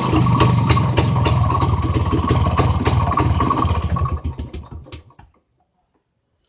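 IZh Planeta motorcycle's single-cylinder two-stroke engine running with a rapid, even firing beat. About four seconds in it stops: the beats slow and die out within a second.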